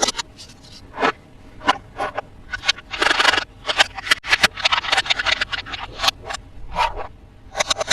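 Toy packaging being handled and opened by hand: an irregular run of short scrapes, rustles and sharp clicks, with a longer scraping stretch about three seconds in.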